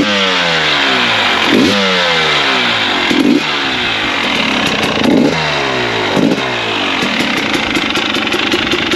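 KTM 300 XCW TPI fuel-injected single-cylinder two-stroke engine being blipped about five times. Each time the revs snap up and fall away. It settles into a steady idle for the last couple of seconds, warm and clean-running without loading up.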